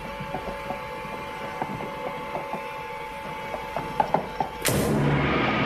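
A child's plastic Big Wheel tricycle rolling along, its wheels ticking and clacking on the floor over a faint steady tone, with a few sharper clacks about four seconds in. Near the end a sudden, louder sustained rumble takes over.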